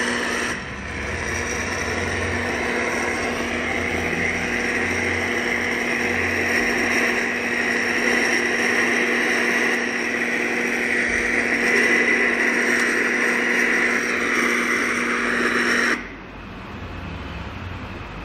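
Steady hum with a constant low tone over a broad hiss from a multimedia fan, lamp and radio unit, cutting off abruptly near the end and leaving a quieter, duller noise.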